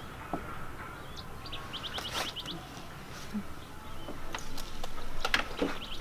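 A bird calling: a quick run of about eight short, high chirps, starting about one and a half seconds in, with a few faint clicks around it.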